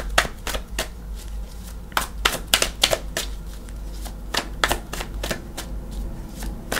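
A tarot deck being shuffled in the hands: irregular runs of quick card slaps and flicks, with short pauses between the runs.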